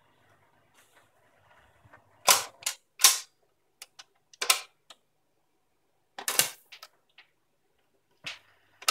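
Garrard RC65A 78 rpm record changer running its change cycle: a string of sharp mechanical clicks and clunks as the tone arm lifts, swings across and sets down, with a heavier, deeper clunk a little past the middle as the next record drops onto the stack.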